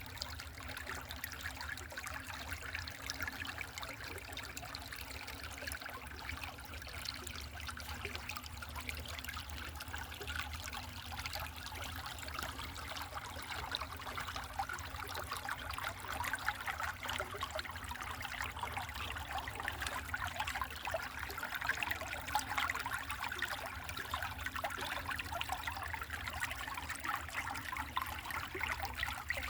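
A mountain stream trickling and babbling steadily over rocks, a little fuller in the second half.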